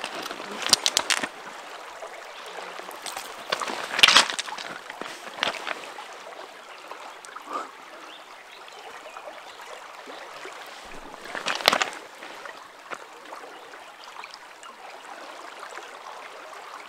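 Steady rush of flowing river water, with a few sharp knocks about one, four and twelve seconds in.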